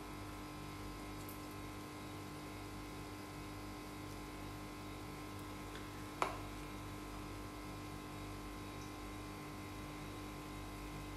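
Steady low hum with a faint even hiss over it, and one light sharp click about six seconds in.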